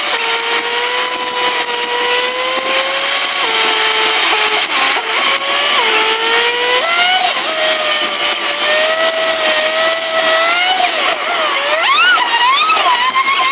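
Car engine pulling through the gears. Its pitch rises slowly and drops sharply twice in the first six seconds as it shifts up, then climbs steadily. Near the end the revs swing quickly up and down several times.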